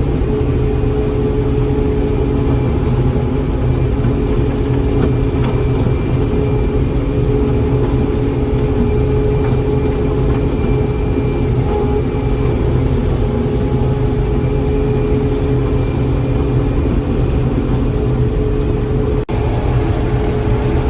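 John Deere 4400 combine running steadily while harvesting corn, a continuous loud drone of engine and machinery with a steady hum. It breaks off for an instant near the end.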